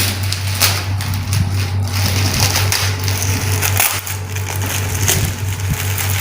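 A wrapped shipping box being torn and crushed open by hand, with dense, irregular crackling and ripping. A steady low hum runs underneath.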